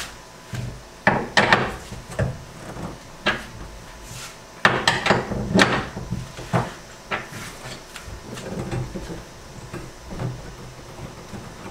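Irregular knocks, clicks and clatter of a wrench and bolt hardware against a jon boat's gunwale as a rod holder is bolted down.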